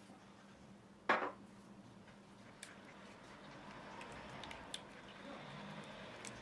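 One sharp knock about a second in, then a silicone spatula stirring a runny butter-and-oil mixture in a wooden bowl, soft squelching with light clicks of the spatula against the bowl, growing a little louder toward the end.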